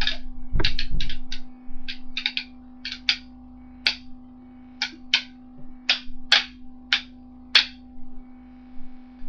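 Sticks clacking against each other in a mock fight: well over a dozen sharp, irregular strikes, thickest in the first three seconds and sparser after. A steady low hum runs underneath.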